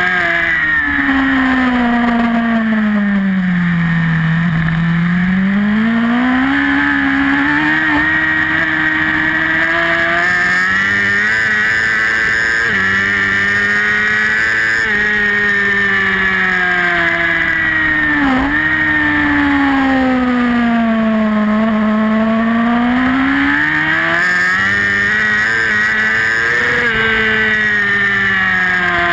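Racing superbike engine heard from an onboard camera at race pace. The note falls under braking into corners, then climbs again through the gears with quick steps at each gear change. It drops twice, in the first few seconds and again after a sharp dip about two-thirds of the way in, and climbs again near the end.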